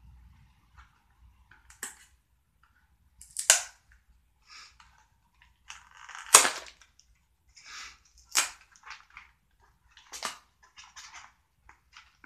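Small cardboard candy box being pried open by hand: a series of sharp snaps and tears as its glued flaps come apart, the loudest about three and a half and six seconds in, with softer crinkling between.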